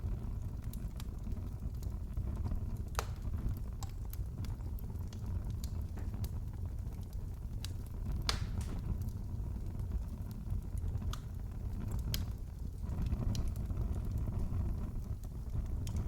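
Wood fire crackling in a fireplace: a steady low rumble of flames with scattered pops and snaps, a few sharper pops standing out about 3, 8 and 12 seconds in.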